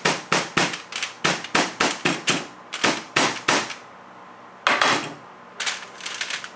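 Hammer striking the crimped seam of a stainless steel foil packet flat against a sheet-metal bench top, about three sharp blows a second, sealing the packet for heat treating. The blows stop a little over three seconds in; one louder clunk follows about five seconds in, then light crinkling of foil being folded by hand.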